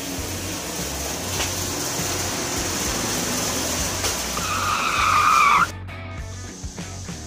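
A steady rushing noise, then a loud, high, wavering squeal lasting about a second and a half that cuts off abruptly, followed by quieter background music.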